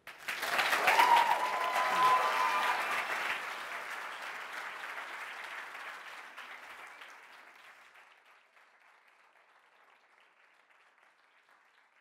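Audience applauding: the clapping breaks out at once, is loudest in the first few seconds, then dies away and is nearly gone about eight seconds in.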